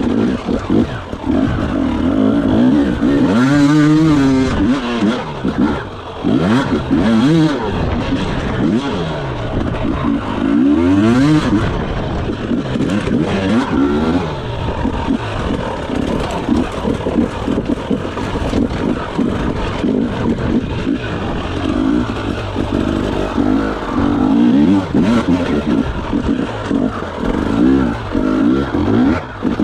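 Enduro dirt bike engine revving up and falling back over and over as the rider works the throttle over rough dirt terrain, heard close up from the rider's camera.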